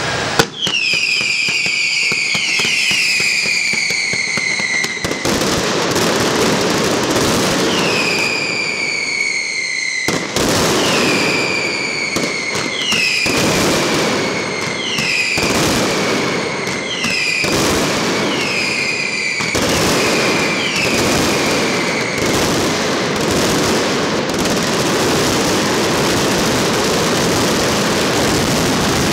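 Fireworks display: repeated clusters of whistling fireworks, each whistle falling in pitch, over a continuous barrage of bangs and crackling. The whistles stop about two-thirds of the way through, leaving dense crackling and bangs.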